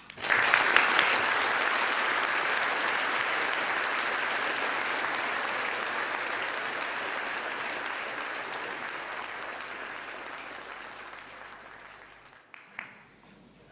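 Audience applauding, starting suddenly, loudest at first, then slowly dying away over about twelve seconds.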